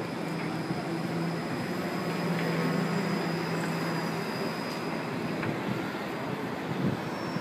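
A heavy vehicle passing nearby over steady city traffic noise, its low engine hum swelling to a peak about three seconds in and then fading away.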